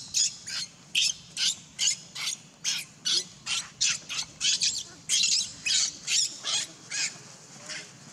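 Baby macaque screaming over and over in short, shrill squeals, about two to three a second, while an adult macaque holds it down.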